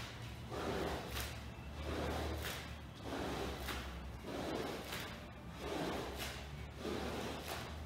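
A long-handled rug paddle pushed in repeated strokes across a soaked rug, squeegeeing shampoo foam and water out of the pile with a wet swish about every two-thirds of a second.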